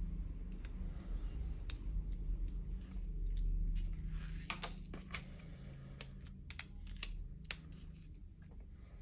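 Scattered small clicks and taps from handling a smartphone and small repair tools, over a steady low hum; a few sharper clicks come around the middle and again a couple of seconds later.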